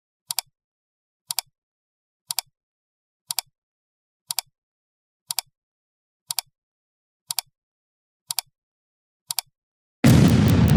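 A short, sharp double click, repeated once a second ten times with silence in between. About ten seconds in, a much louder, dense burst of noise starts and carries on.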